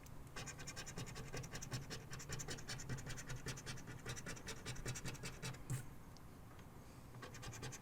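Scratching the coating off a lottery scratch-off ticket: a fast run of short scraping strokes, several a second, getting fainter near the end.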